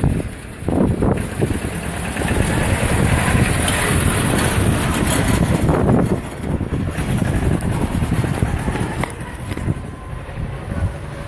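Motorboat engine running, with wind buffeting the microphone in gusts.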